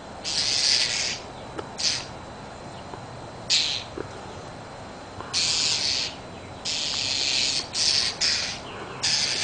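A small bird giving harsh, hissing scold calls in about eight separate bursts, each half a second to a second long, as it mobs a cat.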